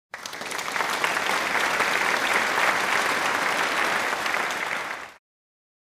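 Applause from a crowd, fading in at the start and fading out near the end.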